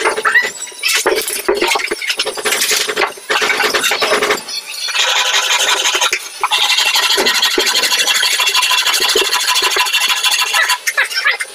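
A small handheld electric power tool runs with a steady high whine, briefly about five seconds in and then for about four seconds, stopping shortly before the end. Before that come irregular scraping and knocking sounds of work on the door edge.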